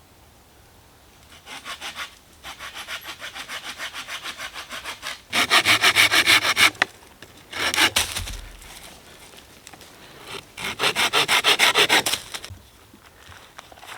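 Hand saw cutting through wood in quick, even back-and-forth strokes, in three spells that grow louder in the middle, with a sharp crack and a low thump about eight seconds in.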